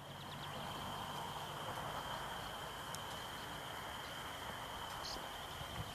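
Meadow insects trilling, one steady high-pitched note throughout, fading in over the first second, with a few short bird chirps, one about five seconds in.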